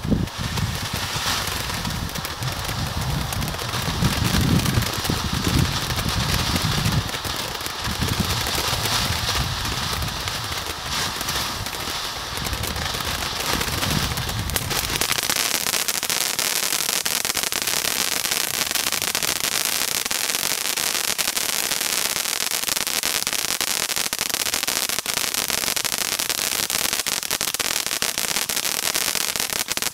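Zeus Orion Fountain firework burning with a continuous hiss and crackle of sparks, which starts abruptly as it catches. About halfway through, the deeper rushing sound drops away and leaves a brighter, higher crackling hiss.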